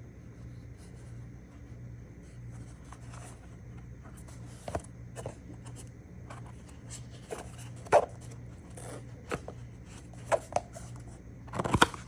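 Scattered rustles, clicks and scrapes of packaging and small items being handled, a few at a time, the loudest near the end, over a steady low hum.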